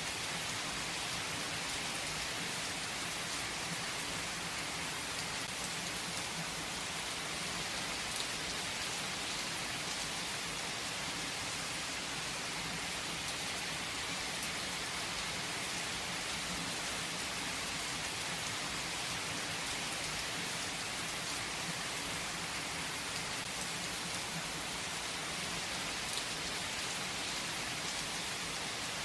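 Heavy rain falling steadily on a tree's leaves, an even hiss with the occasional louder drop.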